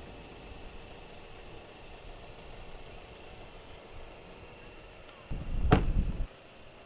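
A car door shutting: one sharp thud over a brief low rumble, about three-quarters of the way in, after several seconds of faint steady background noise.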